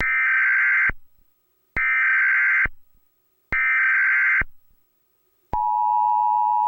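Emergency Alert System header: three data bursts of about a second each, evenly spaced, sounding as a harsh electronic buzz. About five and a half seconds in, the steady two-tone EAS attention signal begins, two close pitches near 1 kHz sounding together.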